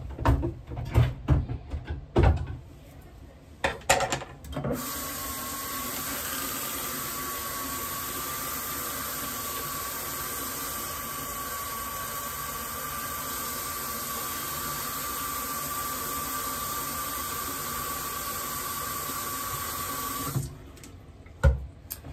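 A few knocks and clicks of things being handled on a bathroom counter, then a sink tap runs steadily for about fifteen seconds, with a thin steady tone in the rush of water, and is shut off.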